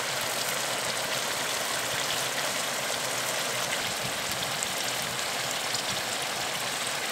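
Mushrooms, potatoes and corn sizzling as they fry in a pan: a steady hiss with fine crackles.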